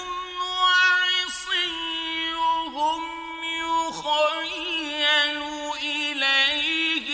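Solo male voice reciting the Quran in the melodic mujawwad style, holding long, ornamented notes with brief breaks between phrases.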